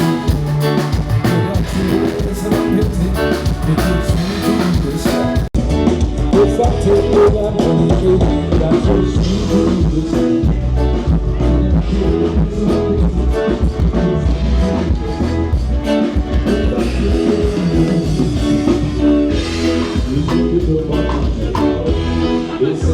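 Loud band music with drum kit and guitar playing steadily, without vocals, cutting out for an instant about five seconds in.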